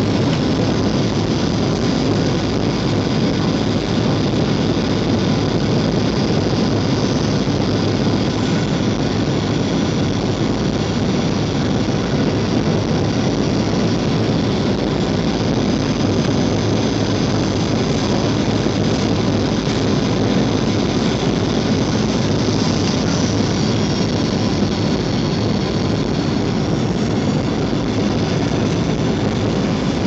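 Steady cabin noise of a Boeing 737 jetliner on its landing approach: jet engines and rushing airflow at an even level, with a faint high whine over it.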